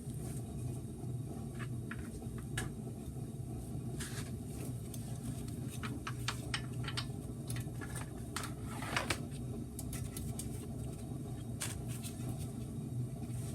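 Scattered light clicks and knocks from work on the front brake caliper and its bolts, over a steady low hum. The loudest knock comes about nine seconds in.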